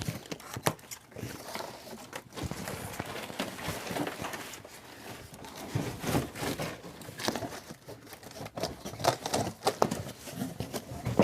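Irregular clicks, knocks and rustling of things being handled, with no motor running.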